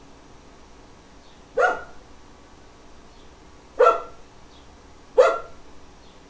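A dog barking: three short barks, about a second and a half to two seconds apart.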